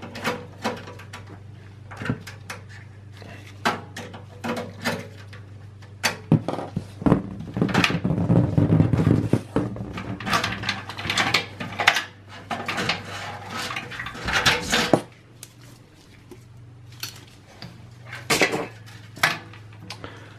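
Screwdriver work and handling of the front USB/audio port module inside a steel PC case: a string of clicks, taps and metal scrapes and rattles, busiest in the middle as the module is worked loose and pulled out.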